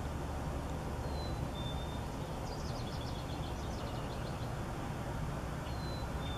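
Steady low rumble with birds chirping over it: a short falling whistle about a second in and again near the end, and a quick run of chirps in the middle.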